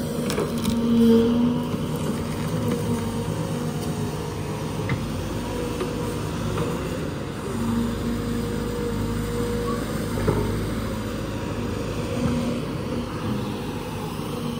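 SANY crawler excavator's diesel engine and hydraulic pump running under load, a steady hum with a whining tone that swells a few times as the machine works and travels.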